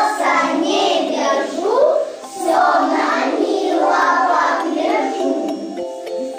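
A group of young children singing a song together. Just before the end the singing gives way to an instrumental tune of short, steady notes.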